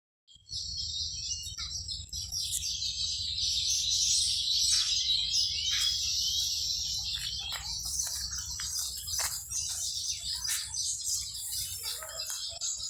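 Many small birds chirping and twittering at once, their short calls overlapping in a dense, continuous chorus, over a steady low rumble.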